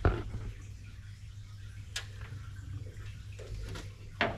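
A few sharp metallic clicks, about two seconds apart, over a steady low hum, as the camshaft of a bare Holden 308 V8 block is turned by hand under newly fitted hydraulic roller lifters.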